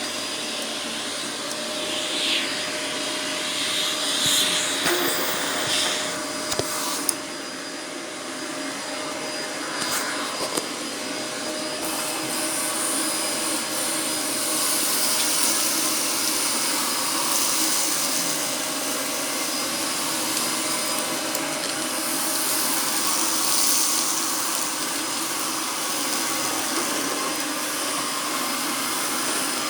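Argos Simple Value vacuum cleaner running steadily, a motor hum under a rush of air whose hiss swells and fades. There are a few sharp clicks about six to seven seconds in.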